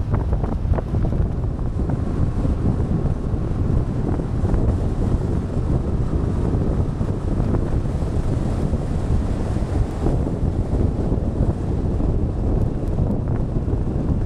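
Wind buffeting the microphone of a camera on a moving scooter: a steady, dense rush of low noise.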